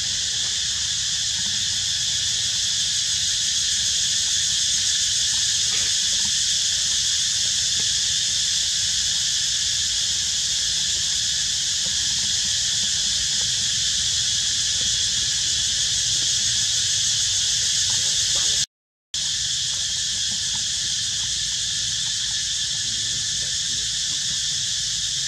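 Steady insect chorus droning high and continuous, over a low background rumble. The sound cuts out completely for a fraction of a second about nineteen seconds in.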